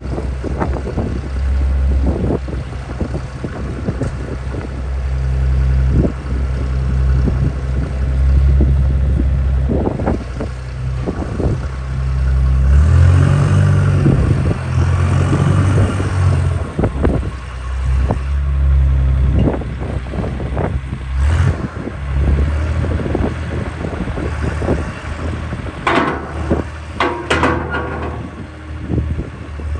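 Bernards W1050C compact wheel loader's diesel engine running as the machine drives, turns and works its loader arm. The engine grows louder for a few seconds around the middle, and a few sharp clanks come near the end as the bucket is raised.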